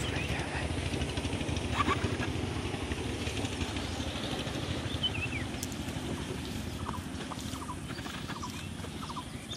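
A steady low motor rumble, with a few short bird chirps over it.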